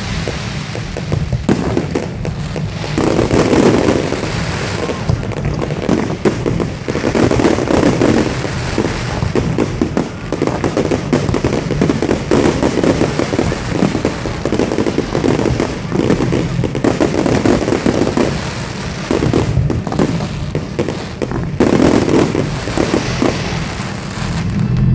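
Fireworks display: a dense, unbroken run of bangs and crackles, swelling louder several times.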